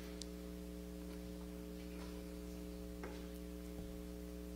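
Faint steady electrical mains hum with a few faint ticks.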